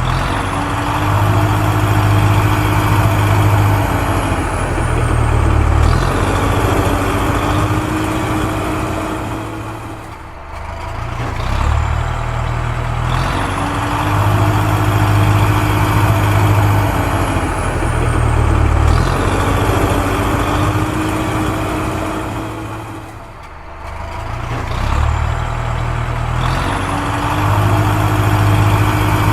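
A recorded heavy-vehicle engine sound effect playing in a loop: a steady low drone with a faint whine, repeating the same pattern about every 13 seconds, with short dips at each loop point.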